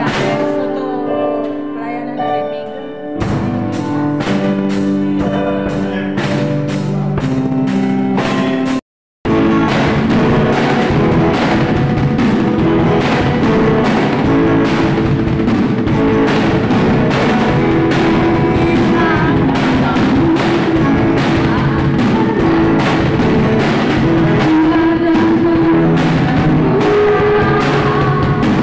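Live band rehearsal: a drum kit keeping a steady beat under held chords and singing. The sound cuts out for a moment about nine seconds in, then the full band carries on.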